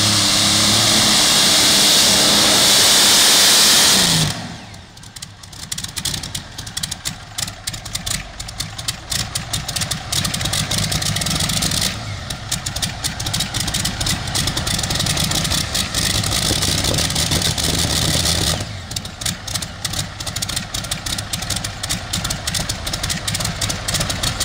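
Modified pulling tractor's supercharged engine at full throttle under load, cut back sharply about four seconds in with its pitch falling, then idling with a choppy, lumpy beat.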